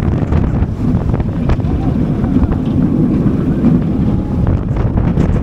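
Wind rushing over an action camera's microphone on a moving roller coaster, over the low, steady rumble of the train running along its track.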